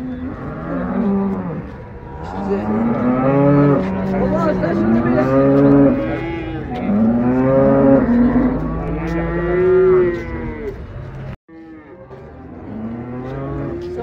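Cattle mooing over and over: a string of long calls, each rising and falling in pitch, following close on one another. The sound cuts out completely for an instant about eleven seconds in, then fainter mooing resumes.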